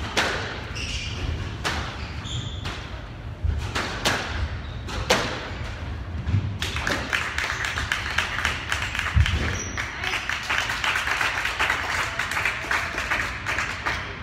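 Squash rally: the ball cracks off rackets and the walls every second or two, with short sneaker squeaks on the wooden court floor. A dense crackle of noise fills the second half, with one heavy thud about nine seconds in.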